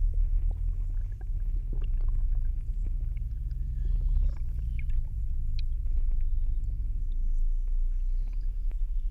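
Mountain spring heard underwater through hydrophones: a steady low rumble of flowing water, with scattered small clicks and ticks over it.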